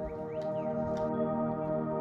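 Slow ambient background music of long held tones, gradually swelling, with a few faint ticks and a short chirp in the first second.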